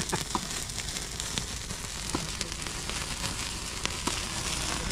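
Open wood fire crackling and hissing as skewered chunks of pork roast in the flames, with scattered sharp pops.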